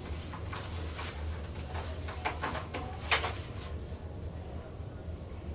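Paper rustling and pages being turned as booklets and sheets are handled: a few short rustles, with a sharper one about three seconds in, over a steady low hum.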